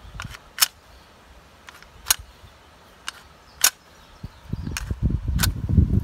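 Sliding iron bolts of a mid-17th-century wrought-iron door lock worked by hand against their coil springs, giving about five sharp metallic clacks spaced a second or more apart. A low rumble comes in during the last second and a half.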